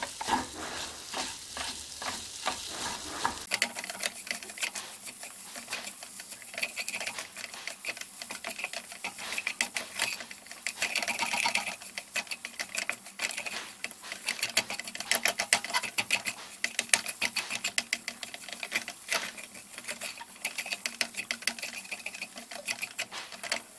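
Wooden spatula scraping and mashing soaked moong dal around a nonstick pan in rapid, irregular strokes, the dal frying in ghee over a medium flame as it is roasted for halwa.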